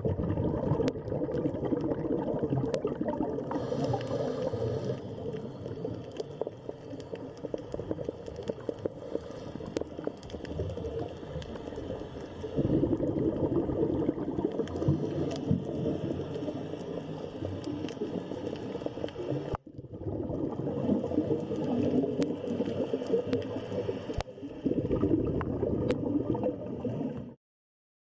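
Underwater ambience of gurgling, bubbling water. It drops out briefly twice, then stops shortly before the end.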